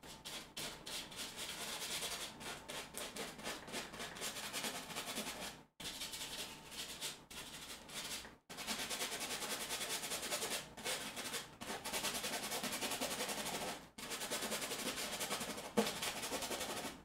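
Stiff bristle brush scrubbing and dabbing paint onto canvas: a fast, scratchy run of strokes that stops and starts several times, with one sharp tap near the end.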